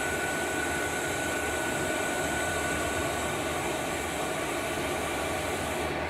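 Diesel air heater running after lighting on 100% biodiesel, with combustion now catching and taking hold: a steady blowing rush from its fans with a thin, steady whine over it.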